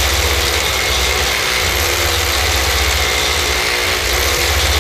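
Hammer drill boring an anchor hole into a concrete floor through the base plate of a car lift post. It runs as a loud, steady, rapid hammering.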